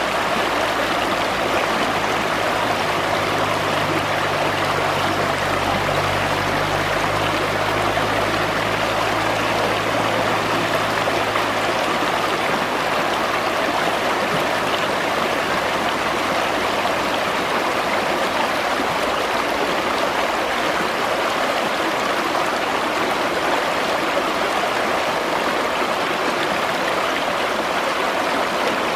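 The Schwechat river flowing, a steady, even rushing of stream water.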